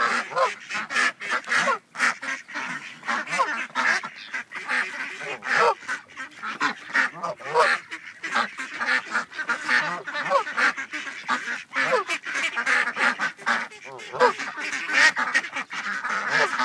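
A flock of ducks quacking over one another in a dense, unbroken chorus of short calls as they gather to be fed.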